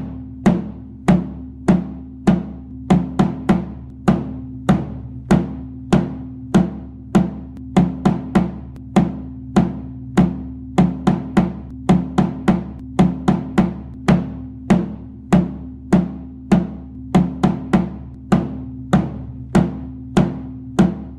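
Bass drum (bombo) struck again and again in an uneven rhythm, about two to three hits a second with some quick double strokes. Each hit is sharp and leaves a low ringing boom that carries into the next.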